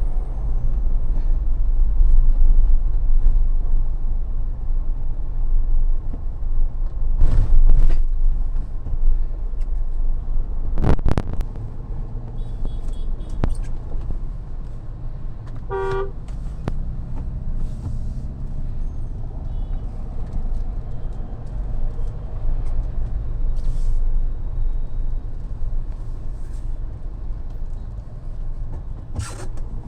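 Mahindra Thar driving in traffic: a steady low rumble of engine and road noise, with a few sharp knocks and a short car horn honk about halfway through.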